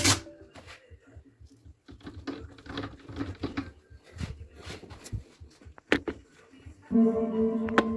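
Scattered light clicks and taps, like small hard parts being handled, then about seven seconds in a held musical note begins.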